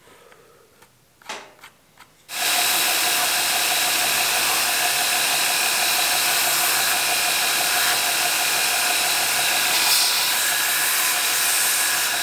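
A few light clicks, then a belt grinder comes in suddenly about two seconds in and runs steadily with a constant whine. The edge of a leather knife sheath is being sanded smooth on the belt.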